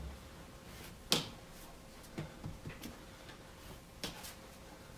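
A few soft knocks and taps of a baseball being caught and handled during a low-ball receiving drill, the sharpest about a second in and another just after four seconds.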